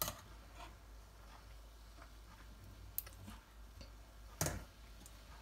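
A few light clicks and one duller knock about four and a half seconds in, from a wooden spoon against a frying pan as cooked spaghetti is tossed into tomato sauce.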